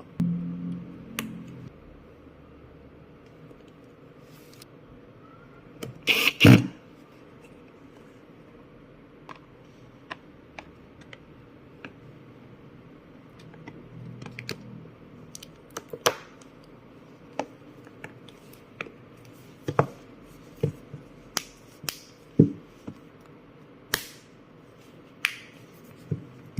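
Small parts and tools being handled while a Vivo V17 smartphone is worked on: a brief rubbing at the start, a louder clatter about six seconds in, then scattered sharp clicks and taps every second or so.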